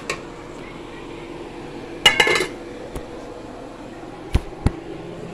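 Metal ladle clinking against a steel cooking pot, with a short ringing clatter of metal on metal about two seconds in, then two dull knocks near the end.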